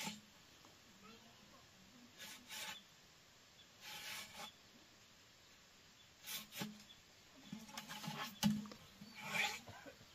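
Irregular scraping strokes, a second or two apart, with a sharp knock about eight and a half seconds in.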